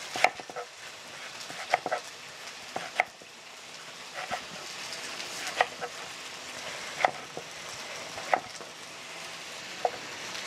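Knife slicing an onion into rings on a wooden cutting board, a sharp tap roughly every second and a half, about eight in all. Under it runs the steady sizzle of beef liver frying in oil on a comal.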